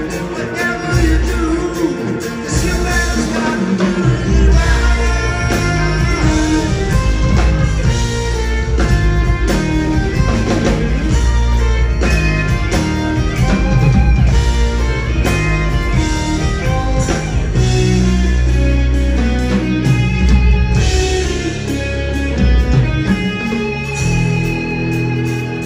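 Live progressive rock band playing loudly, with electric guitar over drums and a moving bass line, heard from upstairs in the concert hall.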